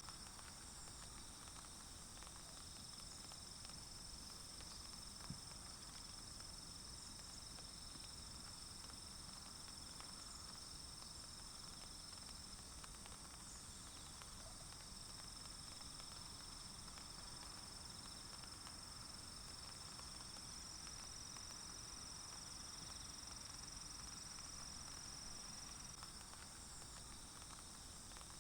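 Faint, steady chorus of insects in a forest: a continuous high trill at two pitches. There is one soft tick about five seconds in.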